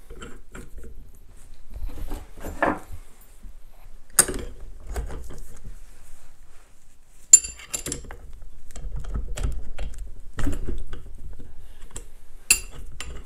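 Steel wrenches clicking and clinking on a flywheel puller as it is turned to draw the generator rotor off a 50cc pit bike engine's crankshaft. Scattered light metal taps, with sharp knocks about four, seven and twelve seconds in, the one near seven seconds the loudest.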